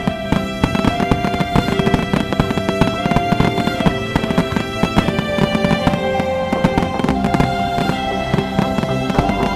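Dense, irregular crackling and popping of New Year's fireworks, mixed with background music of held, sustained notes.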